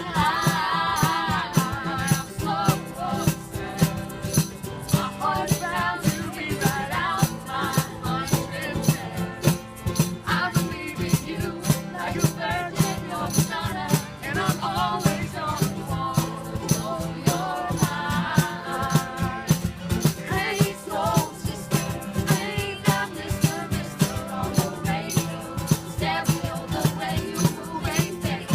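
A song with a singing voice over a quick, steady percussion beat.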